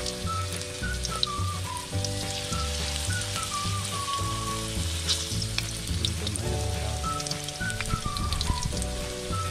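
Battered small-shrimp fritters sizzling and crackling in hot oil in a wok, under background music with a melody and a steady pulsing bass.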